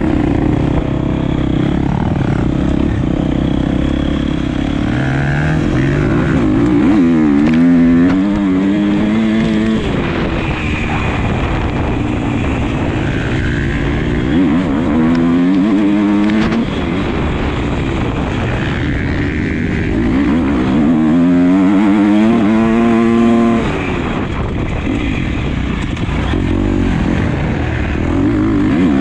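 Motocross motorcycle engine under hard riding, revving up through the gears in repeated climbing pulls, each rise dropping back as it shifts or the throttle is closed.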